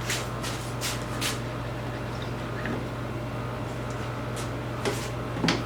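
Steady hum of a shop air conditioner, with a few light clicks and knocks from handling the flip-top cart and its locking pin: about four in the first second and a half and three more near the end.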